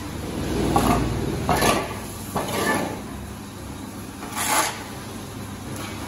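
A shovel scraping on a concrete barn floor in four short strokes, the last and loudest well after the others.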